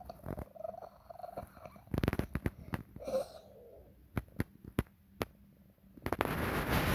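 Domestic cat purring with a wheezy tone, broken by sharp clicks and gulps as she swallows and a harsh noisy breath about six seconds in. These are the wheezing and swallowing that come with her purring; the owner reports an X-ray showing throat tumours and suspects a throat infection, cat herpes or asthma.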